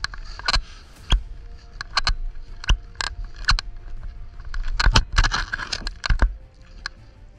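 Irregular click-clack knocks, about a dozen in quick uneven succession, over a steady low rumble.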